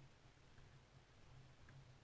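Near silence with a faint low hum.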